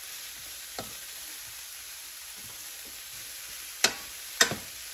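Shredded cabbage sizzling steadily in butter in a stainless steel skillet as it is stirred with a wooden spatula. A faint tap comes about a second in, and two sharp knocks of the spatula against the pan come near the end.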